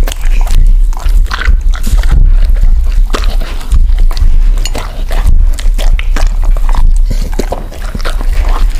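Two dogs eating balls of homemade raw-meat dog food from plates: wet licking, smacking and chewing, heard as a quick irregular run of clicks and smacks.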